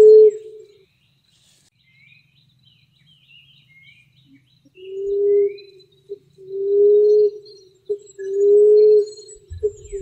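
Emerald dove calling: low, steady coos about a second long, each led by a short soft note. One coo ends just after the start, then after a pause of about four seconds the coos come about every one and a half seconds. Small birds chirp faintly in the pause.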